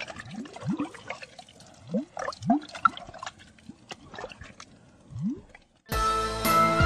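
Underwater bubble sound effects: a series of short rising bloops, one after another. About six seconds in, cheerful music with jingling bells starts.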